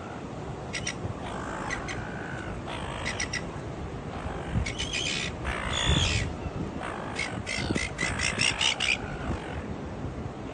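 Birds calling in bursts of fast, rattling notes, repeated in clusters over a steady background hiss. The calls are busiest in the second half.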